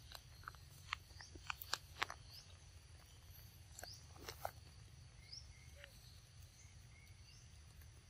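Quiet forest ambience with a faint high chirp repeating about once a second. In the first two seconds come a handful of soft clicks and smacks from young macaques biting and chewing ripe mangoes.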